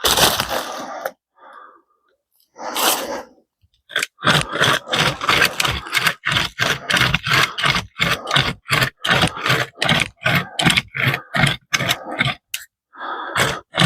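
Pocket chainsaw (a hand-pulled chain with handles) sawing through a tree trunk, its teeth rasping through the wood. A few separate strokes come first, then from about four seconds in a fast steady back-and-forth of about three strokes a second, with a brief stop near the end.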